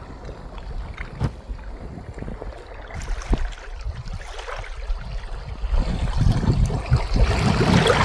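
Wind buffeting the microphone: a low, uneven rumble that grows louder over the last couple of seconds, with a few faint sharp ticks.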